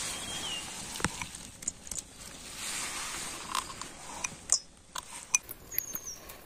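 Hands mixing mashed boiled potato with chopped onion and carrot in a stainless steel bowl: rustling handling noise with scattered clicks and knocks against the bowl, two of them sharper between four and a half and five and a half seconds in.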